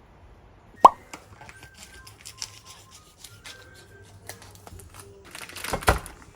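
A single sharp pop about a second in, followed by scattered light clicks and a louder clattering rustle near the end.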